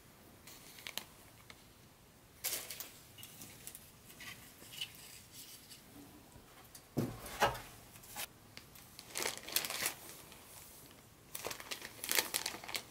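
Packaging crinkling and rustling in irregular bursts as it is handled, with a dull knock about seven seconds in, the loudest moment.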